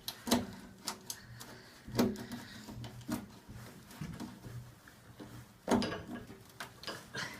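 Scattered light clicks and knocks, about half a dozen, with a cluster near the end, over a faint low hum: hand work on tools and metal parts.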